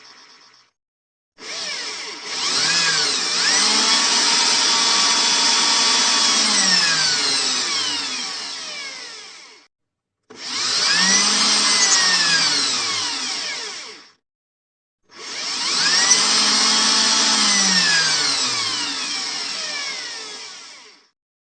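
Electric drill motor run three times in bursts, each spinning up in pitch, holding at speed for a few seconds, then winding down, the longest lasting about eight seconds.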